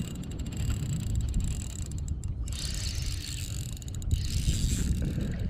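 Daiwa Luvias 2500 spinning reel being wound to bring in a small hooked fish: a light mechanical whirring with fine clicks, clearer in the second half. Wind rumbles on the microphone throughout.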